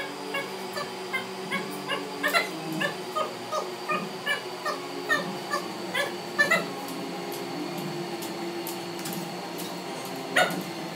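A series of short, high-pitched animal calls, about two or three a second, climbing in pitch and stopping about seven seconds in, over a steady hum. A single sharp click comes near the end.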